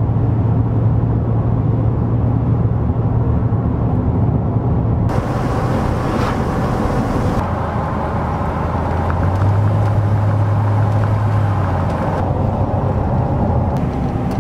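Steady engine drone and tyre and road noise heard from inside a moving vehicle. The character of the noise changes abruptly about 5, 7.5 and 12 seconds in, as one driving shot gives way to the next.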